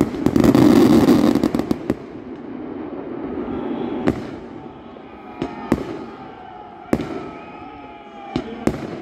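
Aerial fireworks: a loud, dense crackling salvo for the first two seconds, then single shells going off as about six separate sharp bangs, a second or so apart, two of them in quick pairs.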